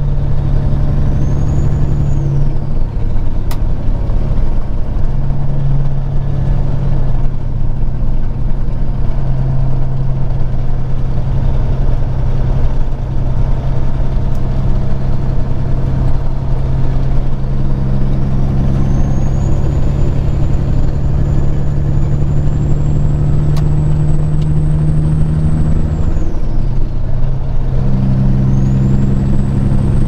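Peterbilt 379's diesel engine running at highway cruise, heard from inside the cab: a steady low drone with a faint high whine that slowly climbs. About four seconds before the end the engine note and the whine drop away briefly, then pick up again.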